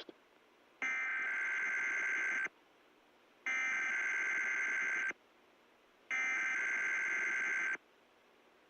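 Emergency Alert System SAME header data tones: three buzzy digital bursts of about 1.7 seconds each, about a second apart. They open the station's Required Weekly Test.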